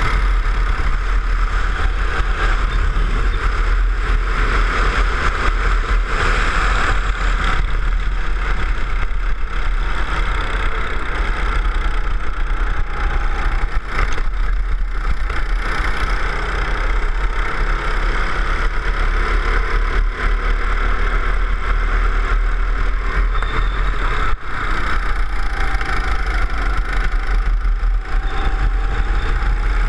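Go-kart engine running at racing speed, heard from on board the kart, its pitch rising and falling as it accelerates out of corners and backs off for them, over a constant low rumble.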